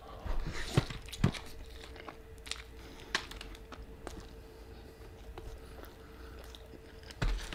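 Close-miked chewing of a mouthful of Flamin' Hot Cheetos–crusted sope, with a few sharper crunches in the first second and a half, then quieter, sparser chewing.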